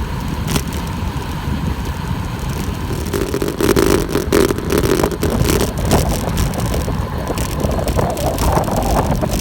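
Wind noise rushing over a bicycle-mounted camera's microphone during a road-bike descent, with low road rumble and scattered sharp knocks from bumps in the road.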